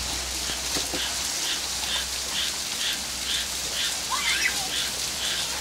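Steady rain falling, with a child's faint shout about four seconds in.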